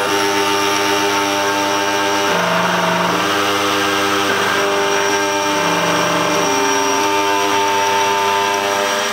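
Bianchi Laser 994 key cutting machine milling a high-security car key blade: its cutter motor runs with a steady whine, the pitch shifting in steps every second or two as the cutter works along the key.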